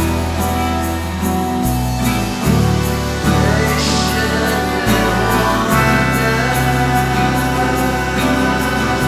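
Rock band recording playing: drums with a steady cymbal beat, a bass line that changes note every second or so, and a singing voice.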